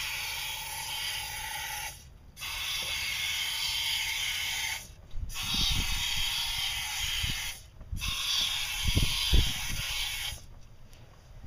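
Aerosol fogging oil sprayed through an extension straw into the engine's four throttle-body intakes, one after another: four steady hisses of about two and a half seconds each with short breaks between, coating the cylinders for winter storage. A few low thumps come in the second half.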